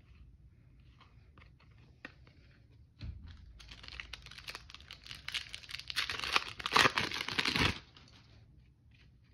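Foil trading-card pack wrapper being torn open and crinkled by hand, a crackling rustle of about four seconds that is loudest just before it stops. Soft clicks of cards being handled come before it.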